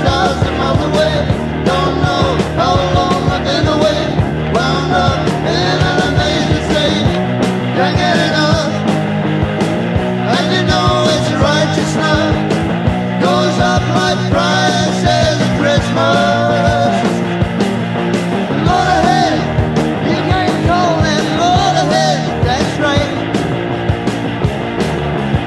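Rock music with a sung vocal line over guitar, bass and drums.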